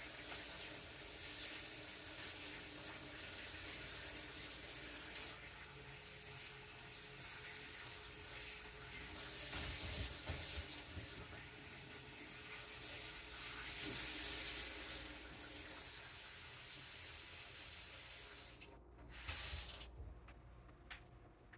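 Kitchen faucet running into a sink while bowls are rinsed and hands washed; the water is shut off near the end.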